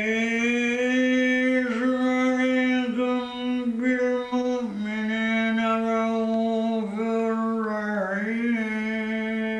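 A man's voice reciting the Quran in a melodic, chanted style: one long held line at a steady pitch, with small turns and dips in the melody every second or two.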